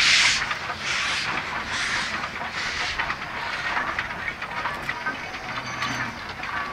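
Garratt steam locomotive working slowly under steam: sharp exhaust chuffs about one a second, fading after about three seconds into a steady hiss with light clicks from the running gear.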